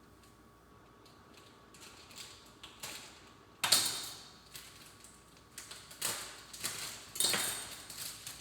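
Kitchen handling noises while cooking: a few sharp knocks and taps, the loudest about three and a half seconds in and another strong one near seven seconds.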